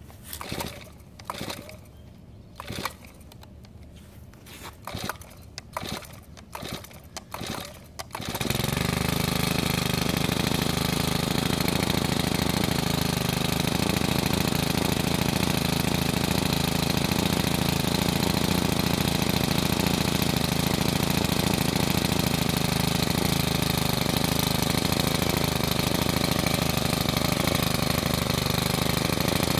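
Cold start of a Shindaiwa T344 two-stroke string trimmer after sitting unused all winter: several short, separate bursts from the recoil-start pulls. About eight seconds in the engine catches and then idles steadily.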